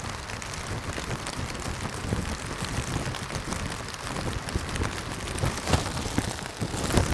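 Steady rain with many fine drops ticking close to the microphone, some of them on a plastic rain poncho that rustles like a grocery bag. A few louder low knocks break through, the loudest near the end.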